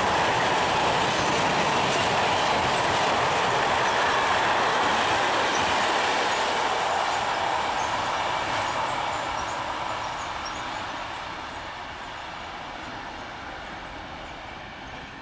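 Freight train rolling past on the near track: a steady noise of wagon wheels on the rails that fades away from about halfway through as the last wagons pass and recede.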